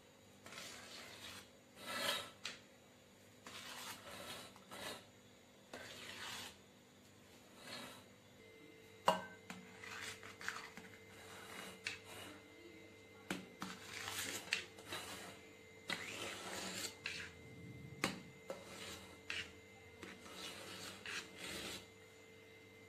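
Table knife scraping and smoothing whipped cream frosting around a cake in repeated short strokes, with a couple of sharp clicks about nine and eighteen seconds in.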